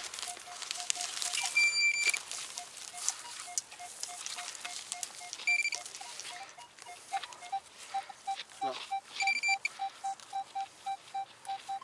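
A small digging knife stabbing and scraping into dry, crusty soil, in a run of short clicks and scrapes. Under it a steady train of short low beeps goes at about three to four a second, with three brief higher beeps spread through it.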